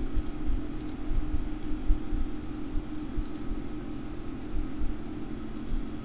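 Steady low hum with a few faint, short clicks scattered through.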